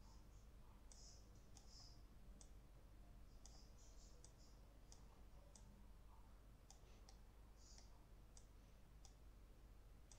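Faint computer mouse clicks, many at irregular intervals, with a few short scratchy sounds between them over quiet room tone.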